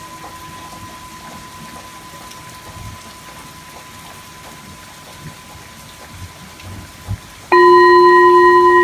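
A soft rain-like hiss with a faint ringing tone dying away underneath; near the end a metal sound-bath instrument is struck and rings on loudly with a clear tone and several higher overtones.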